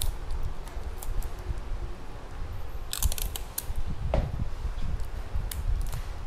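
Handling noise from hands working among potted Phalaenopsis orchid stems: rustling and light scattered clicks, with a quick cluster of sharp clicks about three seconds in.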